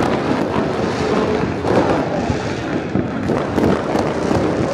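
Fireworks going off in many overlapping bursts: a dense, continuous crackle of pops and bangs with no pause.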